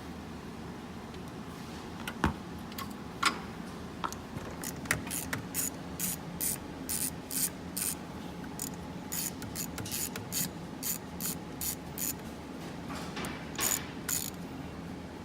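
Ratchet wrench clicking in a long run of quick strokes, about two a second, as the 12 V battery's hold-down bolt is loosened. A couple of sharp knocks from the tool come before the run.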